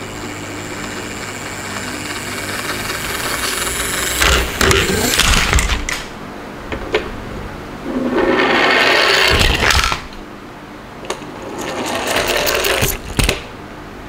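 Small plastic toy trucks rolling down a sloped wooden board, their wheels rattling in several swelling runs of rolling noise, with sharp clicks and knocks as they bump along and drop onto paper.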